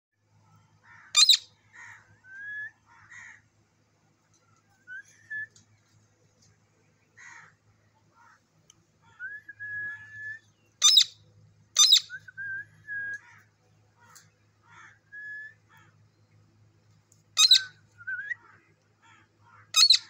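Caged long-tailed green parakeet calling: about five loud, harsh screeches, one about a second in, two close together midway and two near the end, with short soft whistled notes, some rising, in between.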